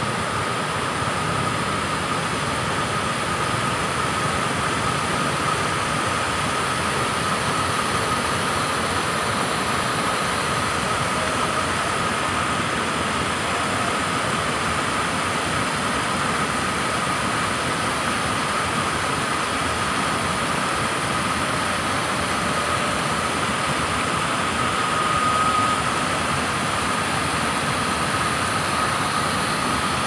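Steady rushing of water pouring over a wide, rocky river cascade, with a thin steady high tone running through it.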